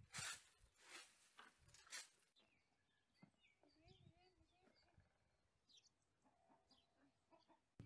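Broom sweeping a dirt stable floor in brisk strokes, about two a second, which stop about two seconds in. After that only faint bird chirps are heard.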